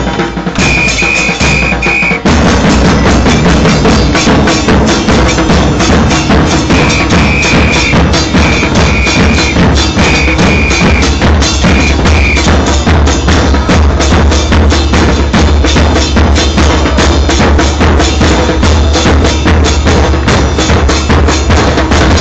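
Football supporters' drum band playing bombos and other drums in a dense, driving beat that comes in at full force about two seconds in. Short high-pitched blasts sound over it, four near the start and several more between about 7 and 12 seconds in.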